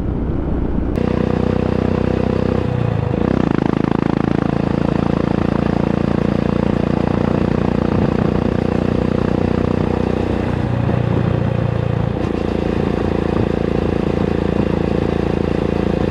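Royal Enfield Himalayan's 411 cc single-cylinder engine running steadily through a Red Rooster aftermarket exhaust with the DB killer removed, so loud. Its note shifts briefly about three seconds in and again around eleven seconds.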